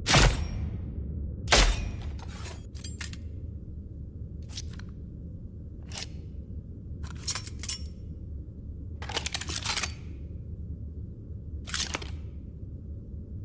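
Throwing stars striking and clattering: two sharp metallic hits with a low thud, one at the start and one about a second and a half in, then scattered clicks and a quick rattle of clicks about nine seconds in. A steady low hum runs underneath.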